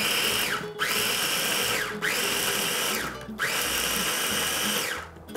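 Small electric kitchen appliance motor pulsed on and off, about four runs of a second or so each. Its whine rises as it spins up and falls as it winds down between pulses.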